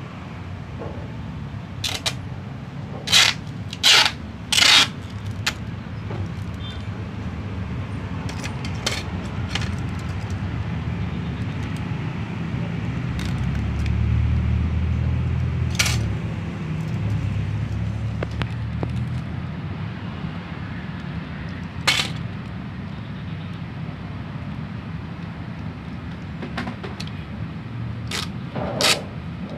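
Clear tape ripped off its roll in short, loud pulls, four in quick succession in the first few seconds and a few more later, as the cut vinyl sticker is masked with transfer tape. A steady low rumble runs beneath and swells a little midway.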